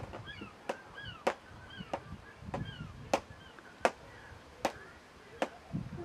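Sharp knocks, about eight of them, irregularly spaced half a second to a second apart, like chopping or tapping. Short chirping bird calls come between them, mostly in the first half.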